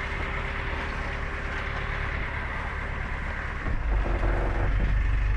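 Sailboat's inboard engine running at idle with a steady low hum. A little over three seconds in, the low rumble grows louder.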